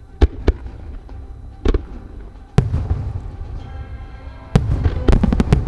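Fireworks display, a starmine barrage: shells launching and bursting with sharp bangs. There are two bangs near the start, one about 1.7 s in and a bigger one about 2.6 s in, then a rapid string of bangs from about 4.5 s, over a low rumble.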